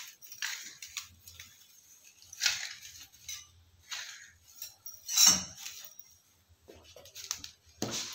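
A household broom sweeping a tiled floor: a few separate swishing strokes, the loudest about five seconds in.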